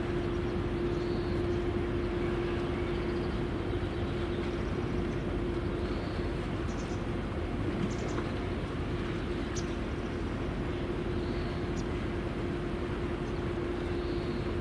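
A steady mechanical hum holding one constant pitch over an even rushing background noise, with a few faint short chirps now and then.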